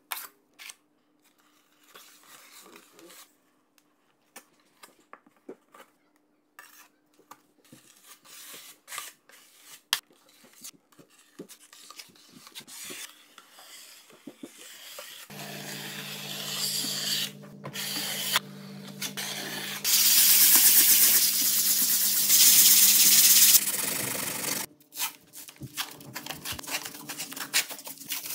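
Drywall taping knives scraping joint compound in a metal mud pan and across a wall: scattered scrapes and taps, then a louder steady rasping for a few seconds about twenty seconds in.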